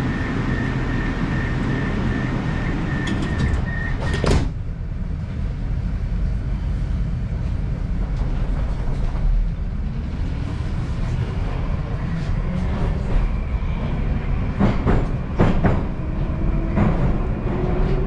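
Moscow metro train at a station: the door warning beeps pulse for a few seconds, then the doors shut with a bang about four seconds in. The train pulls away with a low running rumble and a slowly rising motor whine, and sharp rail-joint clacks come near the end as it speeds up into the tunnel.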